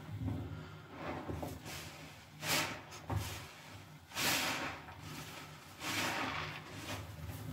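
Foam-soaked sponges squeezed by hand in a tub of thick soapy lather: wet squelching with a fizzing hiss of foam, in several separate squeezes about a second apart.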